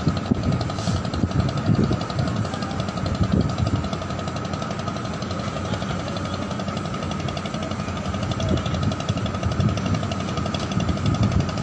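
A ship's engine running steadily with a fast, even knocking beat and a steady whine over it.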